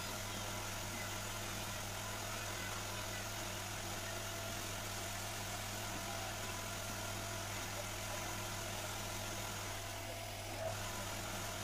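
Wood lathe running steadily, its electric motor giving a low, even hum as the workpiece spins, with a brief click near the end.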